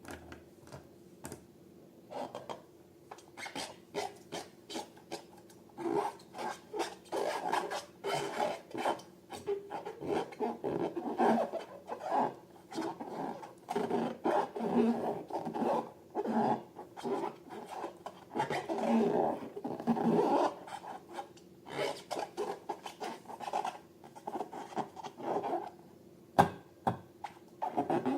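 Slime-making handling: irregular rubbing and scraping strokes, sparse at first, then a dense run of them through the middle before thinning out again.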